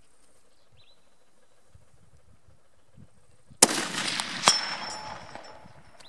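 A single rifle shot from a 7x57 mm Mauser about three and a half seconds in, its report dying away over about two seconds. A second sharp crack comes just under a second after the shot.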